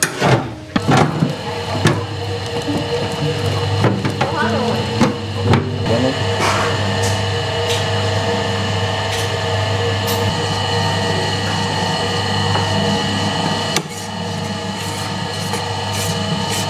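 Electric grinder for steamed rice-noodle dough running with a steady hum while it grinds the dough. A few knocks come in the first seconds.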